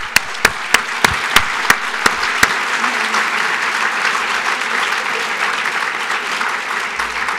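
Audience applauding. Loud, sharp hand claps close to the podium microphone, about three a second, stand out over it for the first two and a half seconds.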